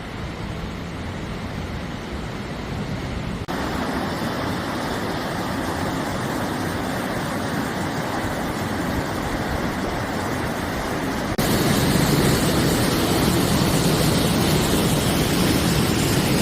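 Rushing water of a mountain valley stream, a steady rush that jumps louder abruptly twice, about three and a half seconds in and again near eleven and a half seconds.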